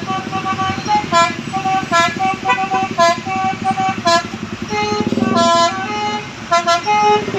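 Bus 'telolet' musical air horn of the Basuri type playing a quick melody of short, clear notes, with brief pauses between phrases, over the bus engine running.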